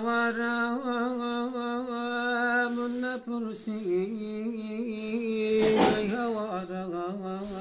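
A man's unaccompanied voice chanting a Kurdish poem in long held notes with a wavering, ornamented pitch, stepping down to a lower note about three seconds in. A short noisy sound cuts across the voice near six seconds in.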